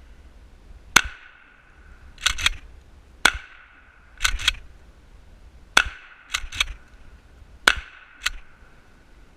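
Gunshots at a shooting range: four loud, sharp shots about two seconds apart, each followed about a second later by a quick pair of quieter cracks. A faint ring trails after the loud shots.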